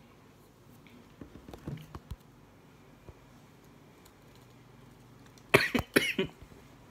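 A person coughing: a quick, loud run of three or four coughs about five and a half seconds in, after softer throat sounds near the start.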